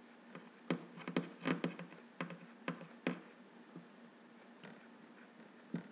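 Scissors snipping through T-shirt fabric, cutting a strip for a strap: a quick run of short snips over the first three seconds, then a few scattered ones.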